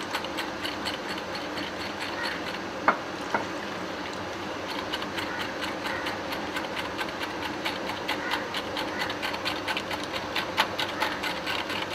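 Wire whisk beating a liquid egg-and-milk custard mixture in a glass measuring jug: rapid, even clicking of the wires against the glass over a steady hiss, with two louder knocks about three seconds in.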